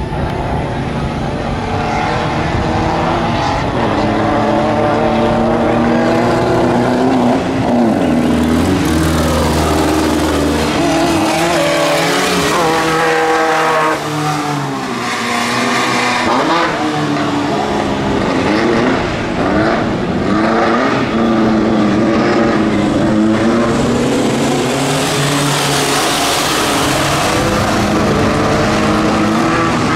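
Engines of several off-road racing buggies running hard round a dirt track. Their pitch climbs and drops again and again as they rev, overlapping as the cars come and go.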